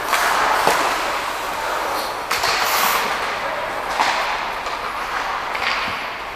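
Ice hockey play heard from the players' bench: a steady rush of skate blades on the ice, with a few sharp knocks of sticks and puck against the ice and boards.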